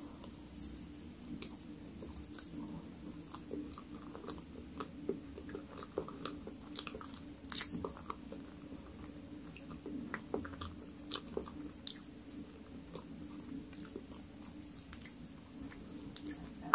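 Close-miked chewing of soft layered chocolate cake: small wet mouth clicks and smacks, irregular, with one louder click about halfway through.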